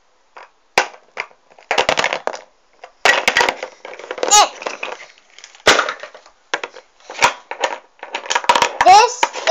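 Small plastic toy figures and toy furniture being handled and set down on a hard tabletop: a series of sharp clicks and knocks, with bits of an indistinct voice in between.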